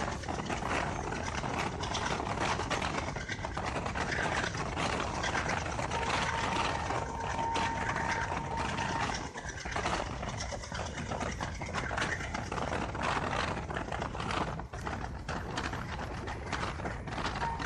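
Passenger train running at speed, heard from an open coach door: wheels clattering and the coach rattling over the track, with rushing wind. A thin steady whine rises above it for a few seconds midway.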